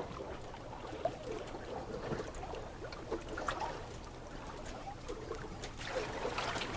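Small fishing boat on open water: water lapping, a few faint knocks, and a low steady hum.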